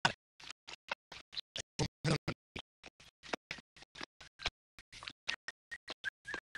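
A rapid, uneven run of short sharp clicks and crackles, about five a second, with dead silence between them.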